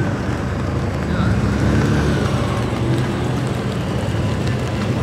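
BMW M3 F80's twin-turbo straight-six, through an iPE valved exhaust, running steadily at low revs as the car creeps past, a deep even burble with no revving.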